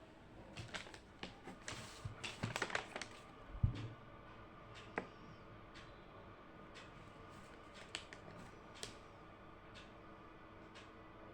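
Small handling sounds of someone working at a desk: a flurry of clicks and paper-like rustles over the first few seconds, a dull thud just under four seconds in, then a few scattered light taps over a faint steady room hum.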